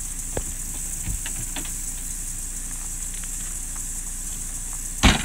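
Light knocks and clatter of a dog crate in an SUV's cargo area as a dog is loaded into it, over a steady high hiss, then one loud sharp bang about five seconds in.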